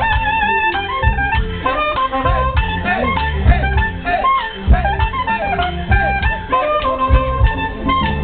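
Live band music: a saxophone playing a bending, wavering melody over low, heavy drum beats.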